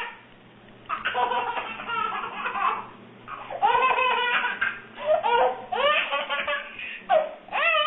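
A baby laughing in repeated bursts, starting about a second in.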